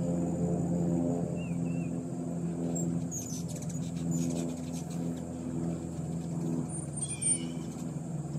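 Ruby-throated hummingbirds hovering at feeders: the low, wavering hum of their wings swells and fades as birds come and go. Scattered high chip notes are heard, and a short burst of squeaky chattering comes about seven seconds in.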